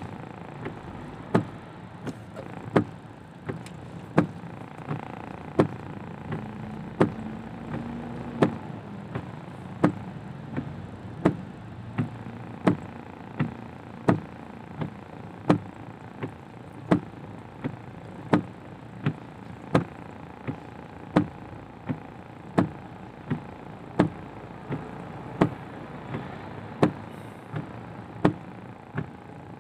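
Windscreen wipers running at steady speed inside a car's cabin, knocking each time the blade reverses, alternately louder and softer, about every 0.7 s. Under them a steady hiss of rain and road noise.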